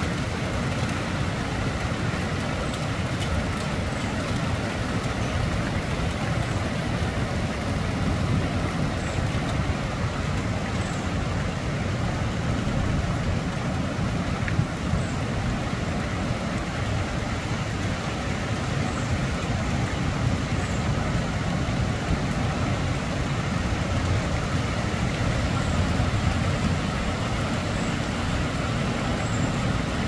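Steady wind and rain noise with a heavy low rumble, and faint short high chirps every few seconds.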